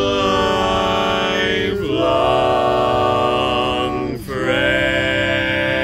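Male barbershop quartet singing a slow tag a cappella in close four-part harmony, holding long chords on "beautiful" and "lifelong". The chord breaks off briefly and changes about two seconds in and again about four seconds in.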